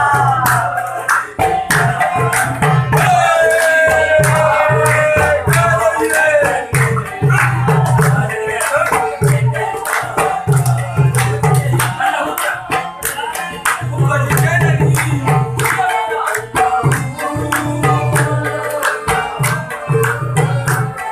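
Saraiki folk song: a singer over a fast, steady drum beat.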